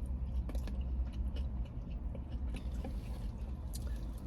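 Chewing close to the microphone: scattered small mouth clicks over a steady low hum.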